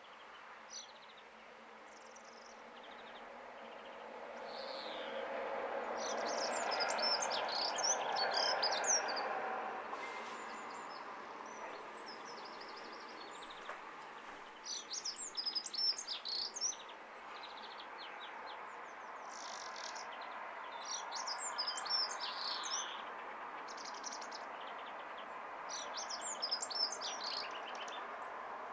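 A small garden songbird singing four short, high phrases a few seconds apart, over a low hum that swells and fades in the first third.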